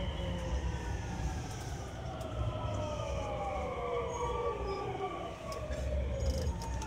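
Electric train's traction inverter and motor whine, several tones gliding down in pitch as the train slows, over a steady low rumble.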